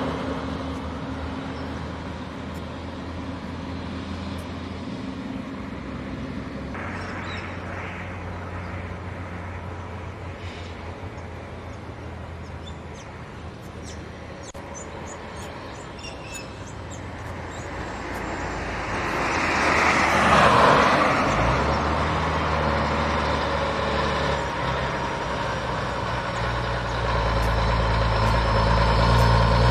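Diesel truck traffic: one truck's engine fades away, and about twenty seconds in there is a loud rushing sound. Then a road train's diesel engine grows steadily louder and lower as it approaches, its deep engine drone loudest near the end.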